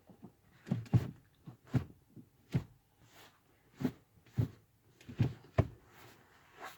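A series of about nine short knocks and clicks at uneven intervals, the loudest about a second in and just past the middle.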